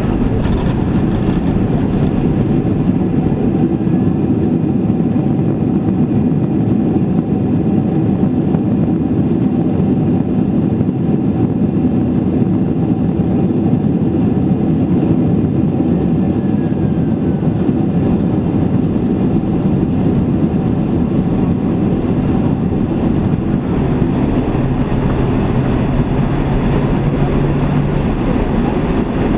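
Cabin noise inside a Boeing 767-300ER rolling on the ground after landing: a steady rumble of the engines and wheels. A low steady hum joins in for a few seconds near the end.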